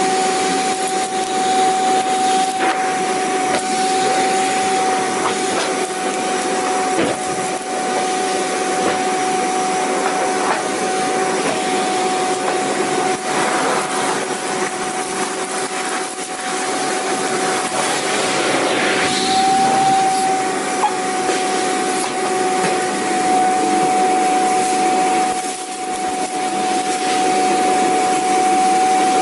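Vacuum cleaner running continuously: a steady rush of air with a constant whining tone through it.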